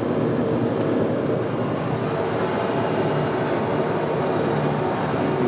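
Steady running noise of shop machinery, an even hum with a few faint held tones and no breaks.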